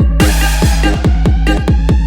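Slowed-and-reverb Brazilian funk (phonk) track: a quick run of deep, pitch-dropping kick hits over a heavy sustained sub-bass, with a bright hissing wash coming in just after the start.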